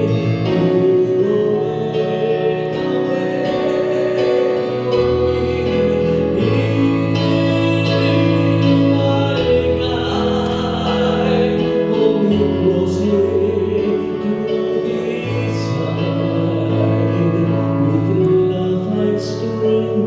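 Live worship music: sustained chords with guitar over a bass line that changes every second or few, and some singing.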